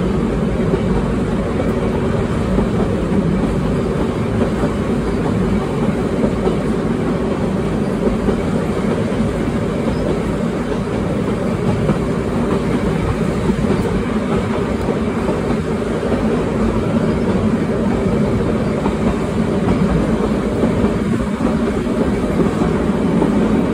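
Manx Electric Railway tramcar running along the line, heard from on board: a steady rumble of wheels on the rails, with a faint steady hum under it.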